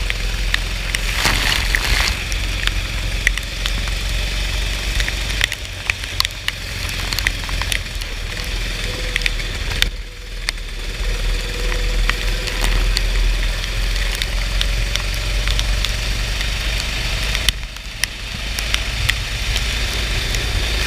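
Go-kart engine running through a race on a soaked track, with a crackling hiss of rain and water spray. The engine note dips briefly twice, about halfway through and near the end.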